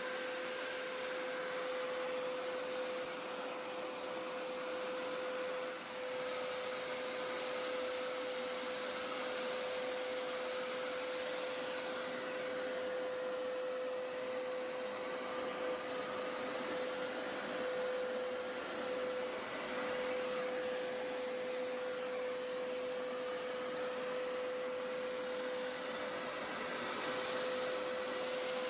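Hoover Power Scrub Elite Pet FH50251 carpet cleaner running steadily while being pushed over a rug. It gives a steady hum with a fainter higher whine that drifts slowly up and down.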